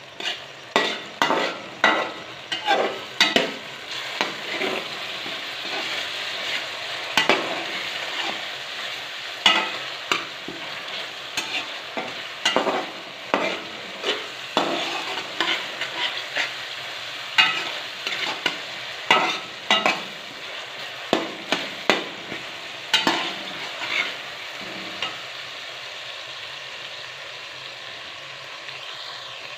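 A spatula stirring and scraping food frying in a pan: a steady sizzle under frequent, irregular scraping strokes that grow sparser near the end.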